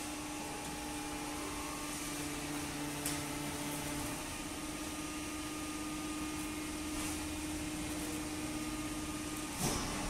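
Horizontal waste paper baler running with a steady mechanical hum and a level tone. There is a faint knock about three seconds in, and near the end the tone stops with a louder knock.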